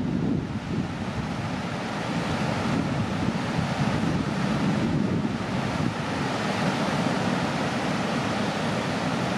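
Ocean surf breaking with wind buffeting the microphone: a steady rushing noise.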